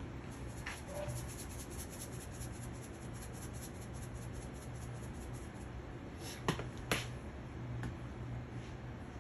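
Spice shaker shaken rapidly, a quick patter of many light ticks, followed by two sharp clicks past the middle. A low steady hum runs underneath.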